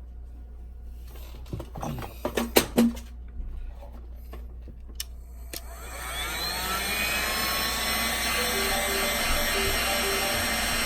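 A few light clicks and taps, then about six seconds in a heat gun switches on: its fan motor spins up with a rising whine and settles into a steady blowing hum. It is warming the home button so the button can be lifted out easily.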